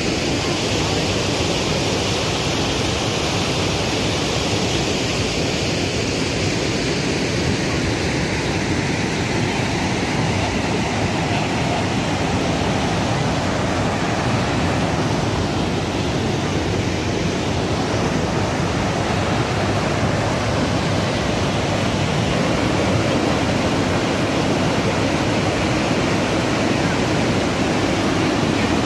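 Steady rush of water pouring from an overflowing lake.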